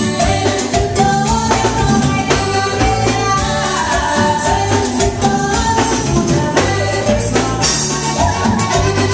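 Live norteño band music: women singing over accordion, acoustic guitar and drums.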